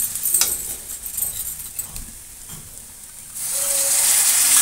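A spatula scrapes and stirs fried onions in a metal kadai. About three and a half seconds in, a loud sizzle starts as a spice paste mixed with water is poured into the hot oil.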